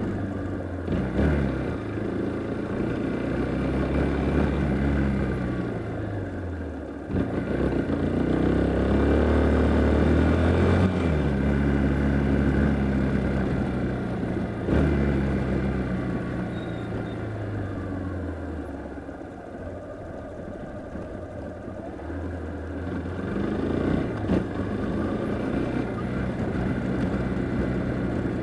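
Yamaha Fazer motorcycle engine pulling through the gears while riding. The engine note rises, drops at each gear change about a quarter and half of the way through, eases off past the middle and then climbs again, with wind rushing past the microphone.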